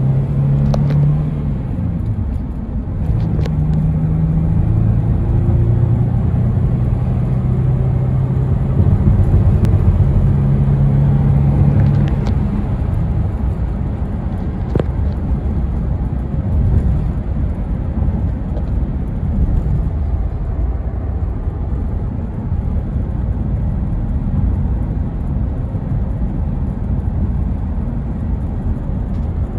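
Cab interior sound of a 1991 Toyota 4WD pickup being driven: the engine note shifts in pitch a few times in the first twelve seconds, then settles into a steady drone of engine and tyre noise.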